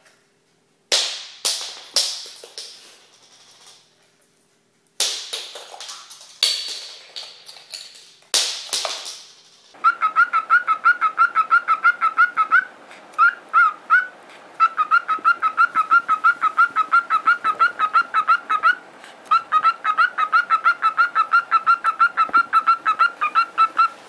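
A run of sharp knocks and clatters as a cockatoo works at a clear plastic box. About ten seconds in, a cockatiel starts whistling a fast repeated chirp, about four notes a second, with two short breaks.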